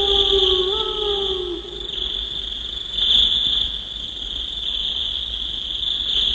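Electronic cartoon soundtrack: a steady high-pitched whine, with a held lower tone that steps up and then glides down and fades out in the first second and a half.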